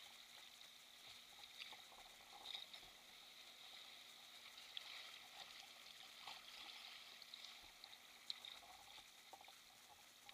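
Very faint sea water sloshing and trickling against a kayak's hull, with a few small ticks scattered through.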